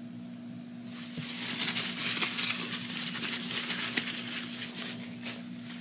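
Scratchy, crackling hiss of a small-engine fuel-system part being cleaned. It starts about a second in and lasts about four seconds.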